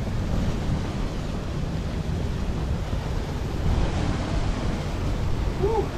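Wind buffeting the camera microphone: a steady, low rumbling noise. There is a brief pitched sound just before the end.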